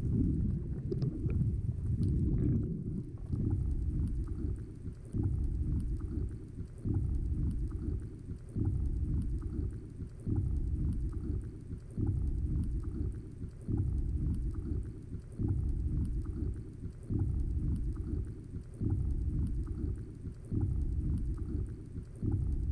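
Muffled underwater rumble of moving seawater heard through an action camera's housing, swelling in regular surges about every second and three-quarters.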